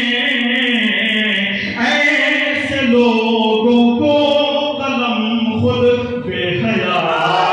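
A man's voice singing devotional Urdu verse through a microphone, in long held, melodic phrases.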